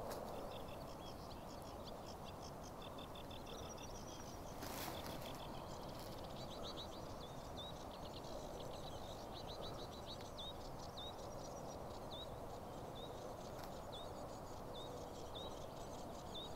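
Small birds calling over a faint outdoor hiss: rapid high rattling trills at first, then a short high chirp repeated about once a second in the second half.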